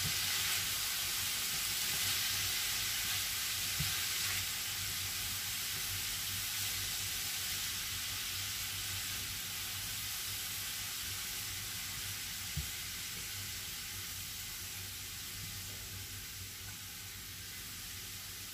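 Cauliflower rice with beef and chorizo sizzling in a hot frying pan as it is stirred and turned with a silicone spatula; the sizzle slowly dies down. Two faint knocks, about four seconds in and again later.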